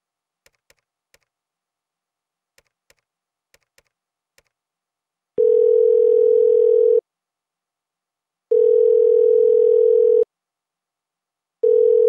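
Faint clicks of a push-button landline phone's keys being pressed, eight in all. Then the telephone ringing tone through the handset: a steady single tone that sounds three times, each about a second and a half long with pauses of about the same, while the call waits to be answered.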